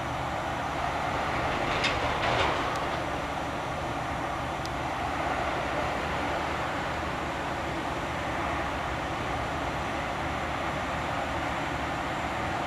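Steady hiss of steam escaping from a standing steam locomotive, with a short louder burst of hissing and a few sharp clicks about two seconds in.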